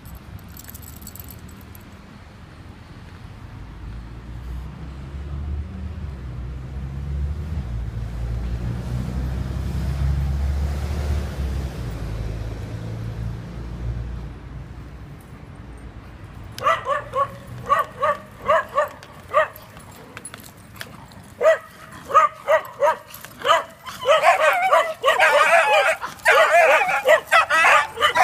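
A low rumble swells and fades over the first half. Then, just past halfway, small dogs start barking in short yaps that grow into nearly continuous excited barking and yipping near the end.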